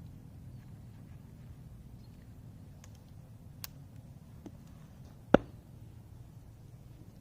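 A low, steady rumble with three short, sharp clicks; the loudest comes just after five seconds in.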